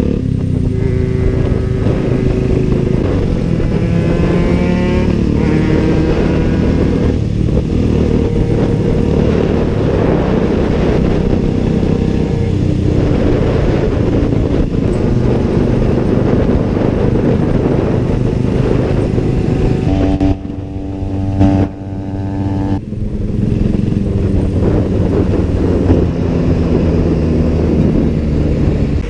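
Motorcycle engine running at road speed, its pitch rising and falling with the throttle. About twenty seconds in it eases off and the level drops for a couple of seconds, then picks up again.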